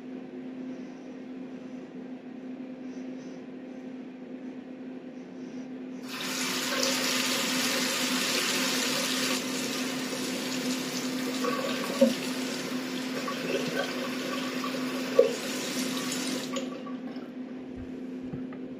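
Tap turned on about six seconds in, water running into a sink for about ten seconds and then shut off, with two sharp knocks while it runs. A steady low hum sits under it all.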